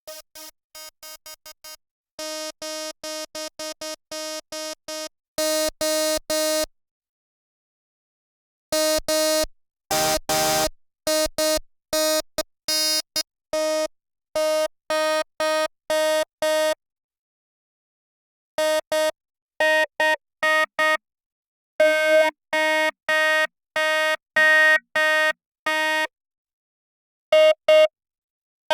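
A software synthesizer repeating the same single note in short stabs, in groups with brief pauses between them, its tone growing brighter or duller from group to group as the patch is shaped from an init preset. About ten seconds in, a short, rougher, buzzier burst stands out.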